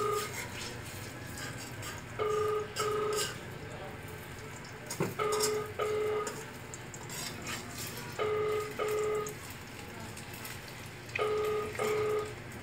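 A telephone's double-beep ringing tone, two short beeps repeating about every three seconds. Under it is a faint steady sizzle of egg frying in oil in a wok.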